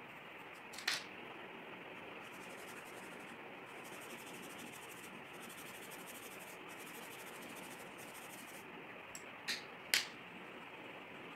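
Faint scratching of pencil shading on paper over a steady hiss, with a short click about a second in and two more close together near the end.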